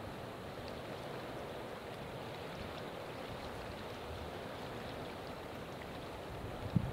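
Steady rush of flowing river water. Near the end, a gust of wind buffets the microphone in low, uneven thumps.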